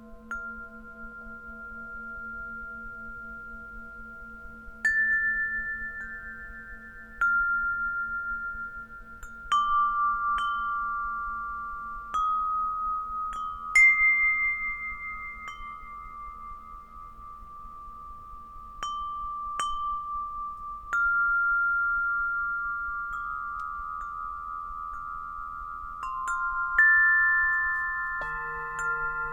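Gregorian alto wind chime ringing, its tuned metal tubes struck one or two at a time at uneven intervals, each note ringing on over the slowly fading hum of a Tibetan singing bowl. Near the end a singing bowl is struck again, adding a fresh low ringing tone.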